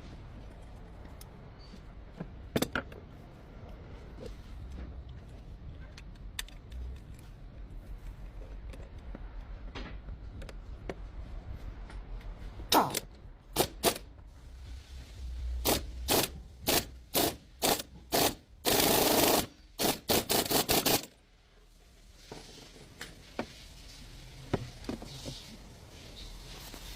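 Scattered sharp metallic clicks and knocks of hand work, growing into a run of evenly spaced strokes and then a dense, rapid clatter about two-thirds through, over a low steady hum.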